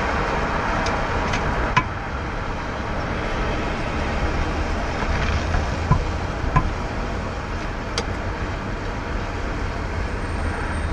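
Steady road-traffic noise from cars and a truck passing on a busy multi-lane road, with a low engine rumble throughout and a few short clicks.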